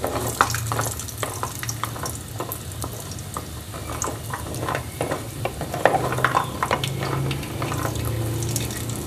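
Wariyan (sun-dried lentil dumplings) frying in hot ghee in an aluminium pot, sizzling while a wooden spatula stirs them, with irregular scrapes and knocks against the pot. A low hum runs underneath.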